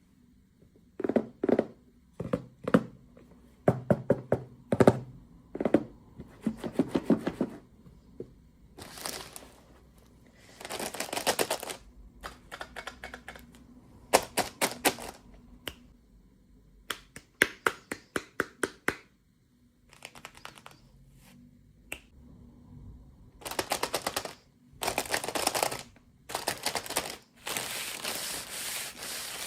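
Hands unboxing small plastic toys: quick runs of clicks and taps of plastic pieces and packaging being handled, then crinkling and rustling of plastic wrapping near the end.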